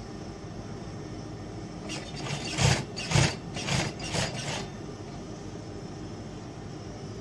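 Juki industrial sewing machine humming steadily. About two to four and a half seconds in there is a quick run of five short, louder bursts of noise from the sewing at the machine.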